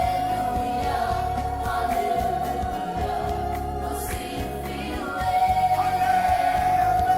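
Gospel music: a choir singing over a pulsing bass line, with one high note held steadily.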